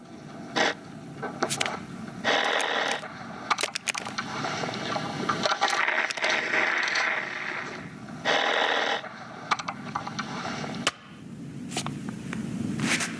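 A rapid string of spliced sound effects: sharp clicks and knocks, scraping and rattling, and short bursts of hiss that start and stop abruptly.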